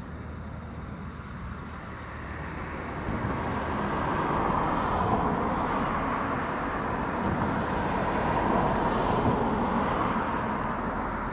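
A vehicle passing by: a broad rushing noise that swells from about two seconds in, holds for several seconds and fades near the end, over a steady low rumble.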